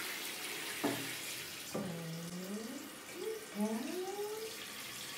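Handheld shower sprayer running water into a plastic tub, a steady hiss. Over it come a few short vocal sounds that slide up and down in pitch, about a second in, around two seconds and near four seconds.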